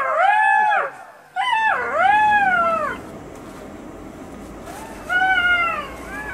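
An animal's drawn-out cries, rising and then falling in pitch: one at the start, two run together a second and a half in, and a last one about five seconds in.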